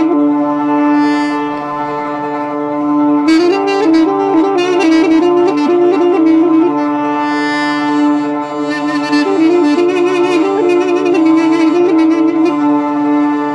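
Music: a reed wind instrument plays a melody over a steady held drone, with stretches of the drone alone at the start, around the middle and near the end.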